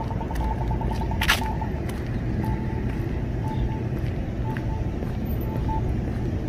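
Accessible pedestrian crossing signal ticking rapidly at one steady pitch, the walk indication, until about a second and a half in, then giving a short beep about once a second, its locator tone. Street traffic rumbles underneath, and there is a sharp click about a second in.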